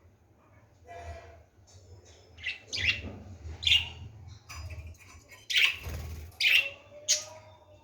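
Budgerigars chirping: a string of short, sharp calls, several in quick succession, the loudest about two-thirds of the way through.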